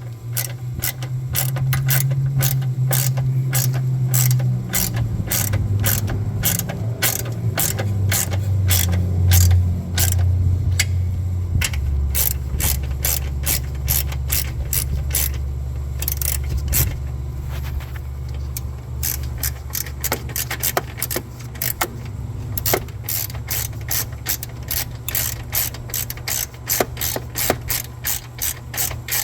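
Hand ratchet clicking steadily, about two clicks a second, as the bolts of the upper transmission mount on a 2013 Ford Escape are run in snug. A low steady hum runs underneath and drops in pitch about twelve seconds in.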